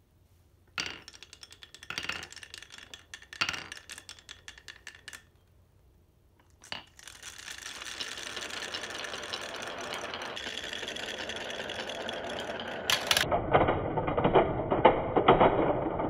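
Glass marbles rolling over the bumps of beech-wood wave-ramp tracks: a few seconds of rapid clicking, a pause, then a dense steady rattle of many marbles together. About 13 s in it turns to a louder, heavier clatter of marbles running down wooden serpentine tracks and dropping into toy washing-machine drums.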